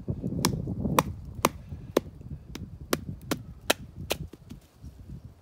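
A wooden baton knocking on the spine of a Plainsmen Knives Pitbull knife, driving the blade down through a small upright log to split it. About nine sharp strikes come at roughly two a second and stop about four seconds in.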